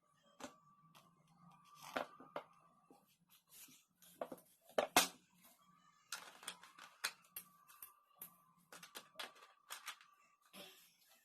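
Scattered sharp clicks and crackles of a 2.25-litre plastic soda bottle being gripped and drunk from, the loudest about five seconds in.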